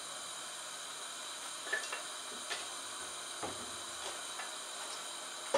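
Gas stove burner hissing steadily under a dry frying pan, with a few faint ticks and a short knock right at the end.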